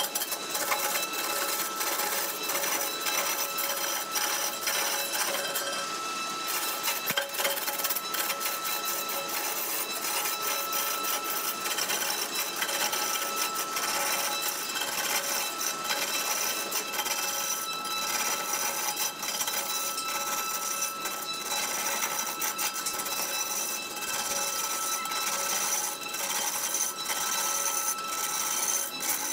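Wood lathe spinning a large log blank while a hand-held turning tool cuts into it: continuous dense scraping and crackling of the tool on wood, over a steady high whine.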